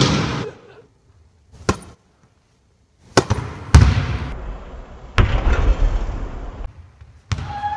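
Volleyballs being struck and slamming onto the court floor: a series of sharp bangs, each followed by a long booming echo in a large empty sports hall.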